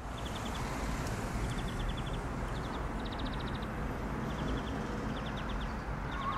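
Street ambience: a steady low rumble of traffic, with a bird calling over it in quick runs of short, high chirps, a run about every second.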